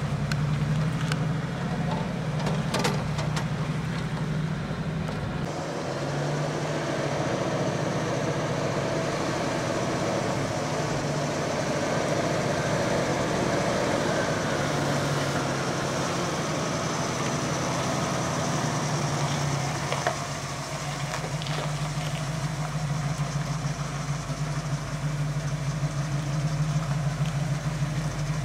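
1971 Ford Bronco's carbureted 302 V8 running at low revs as the truck crawls over slickrock, a steady low drone, with a few sharp clicks in the first few seconds.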